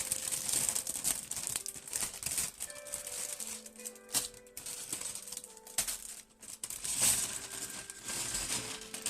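A plastic LEGO parts bag crinkling as it is torn open and handled, with small plastic pieces clicking against each other. Soft background music with held notes sits underneath.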